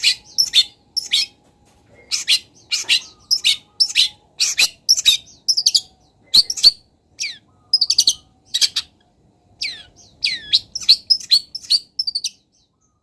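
Long-tailed shrike singing a fast run of short, sharp chirps in quick bursts, with a few down-slurred whistles near the end.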